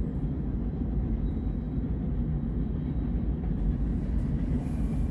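Union Pacific manifest freight train's cars, many of them empty, rolling past at speed: a steady low rumble of steel wheels on rail.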